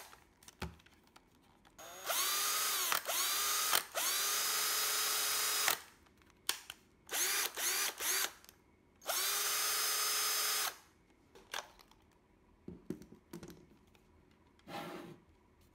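Bosch cordless drill motor running unloaded in a series of trigger pulls. Each start is a quick rising whine that settles to a steady pitch: a long run with short dips, a few short blips, then a steady run of about a second and a half. The drill is running on a rebuilt 18650 lithium-ion pack that is being tested for speed and direction. After the runs come a few scattered clicks and knocks.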